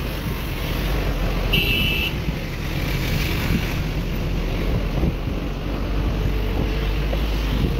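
Steady city traffic and road noise heard from a moving vehicle, with wind buffeting the microphone. A short horn beep sounds about one and a half seconds in.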